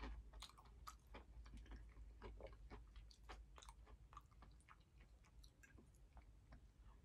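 Faint chewing of food with the mouth closed: soft, irregular small clicks and squelches of a mouthful being worked.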